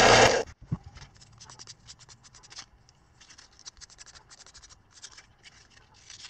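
A bench belt and disc sander running, cut off abruptly about half a second in; then faint, quick scratching strokes of sandpaper rubbed by hand over a small turned wooden stick.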